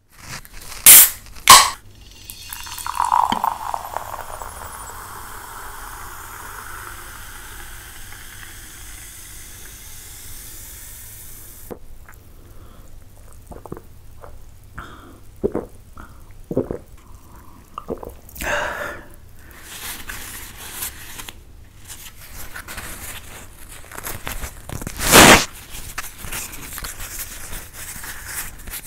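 Two sharp clicks, then a drink poured into a glass with a steady splashing hiss for about ten seconds. After that come scattered small clicks and swallows of drinking from the glass. A loud rustle near the end comes as thin rumali roti is handled and torn.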